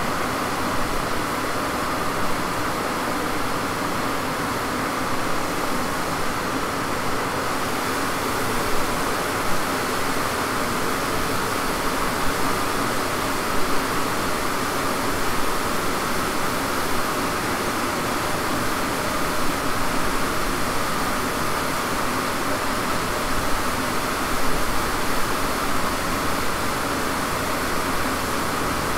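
Steady rushing of a large cooling fan in a dyno cell, with a car sitting on the rollers between power runs. A deeper low rumble comes in near the end as the car begins rolling up for the next run.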